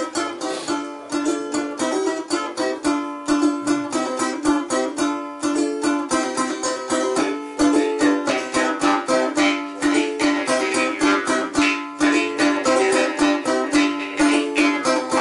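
Balalaika strummed fast and rhythmically, with a jaw harp (vargan) holding one steady drone note and twanging along, its overtones shifting in the second half.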